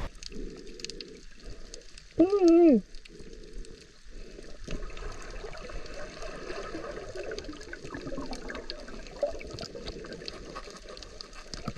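Underwater sound of a free dive over a rocky reef: water moving and bubbling around the camera, with scattered faint clicks. About two seconds in, a brief loud pitched, voice-like tone drops in pitch at its end.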